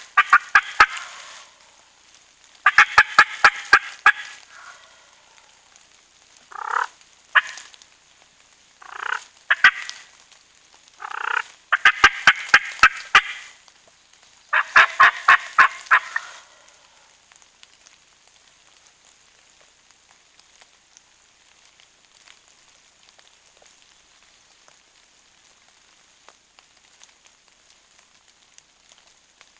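Wild turkey gobbler gobbling hard, about four loud rattling gobbles in the first half, with a few short single calls between them; after that it goes quiet.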